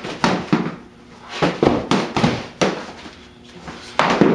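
Rapid hits of practice swords in double-sword sparring, striking each other, a shield and the fighters, about nine sharp strikes in quick clusters of two to four.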